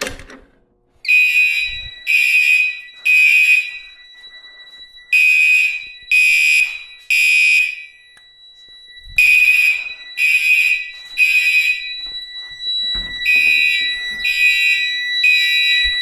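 Fire alarm horns sounding the temporal-three evacuation pattern: three short blasts, then a pause, repeated four times, starting about a second in. This is a fire alarm panel in alarm, set off from a manual pull station. A steady high tone runs beneath the blasts.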